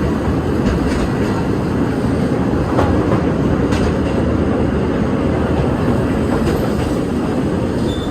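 Steady rumble of a narrow-gauge passenger train rolling along its track, heard from aboard a car, with a few sharp clicks of the wheels over the rails.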